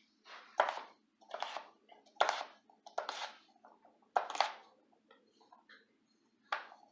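Chef's knife dicing a russet potato on a plastic cutting board: about six crisp cuts, each a knock of the blade on the board with a short crunch through the potato, with a pause about five seconds in.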